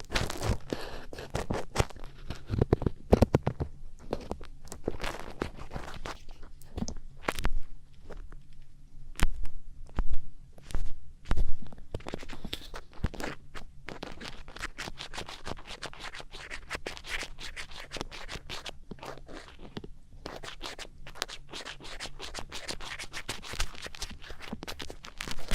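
Close-miked ear-pick ASMR: an ear pick scratching, scraping and rubbing in a microphone's ear, with dense, irregular clicks and rustles that grow louder for a few strokes about ten seconds in.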